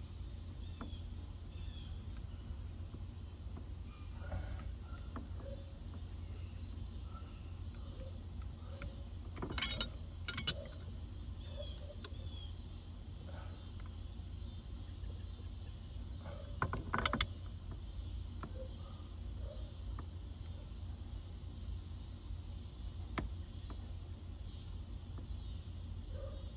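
A steady, high insect trill with a low hum beneath. Metal clinks from tools and parts being worked on the steering shaft and wheel adapter come in a few quick knocks about ten seconds in, a louder pair around seventeen seconds, and a faint one later.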